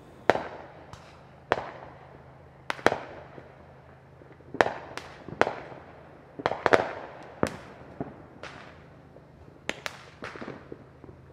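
Neighbourhood consumer fireworks and firecrackers going off near and far: more than a dozen sharp booms and cracks at irregular intervals, each echoing briefly.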